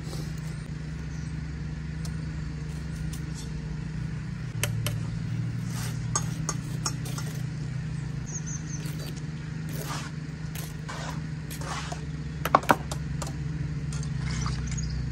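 Sharp knocks and scrapes of a bricklayer's trowel on concrete block as a block is laid and tapped down, the loudest a quick double knock about twelve seconds in, over a steady low engine hum from site machinery.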